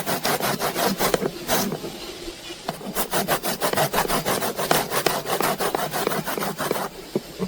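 Quick rasping strokes of something being grated on a hand grater, about six strokes a second, pausing briefly about two seconds in and then resuming before stopping near the end.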